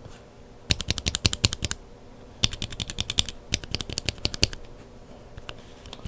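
Lubed mechanical keyboard switches with Kailh Burgundy linear stems being pressed in quick runs of keystrokes, each press and release a sharp clack, in three bursts with short pauses between.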